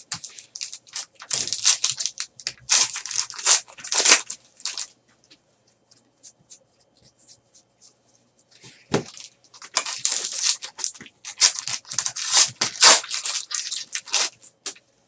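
Trading card pack wrappers crinkling and tearing as packs are ripped open and handled, in two spells of crackling with a quieter pause between.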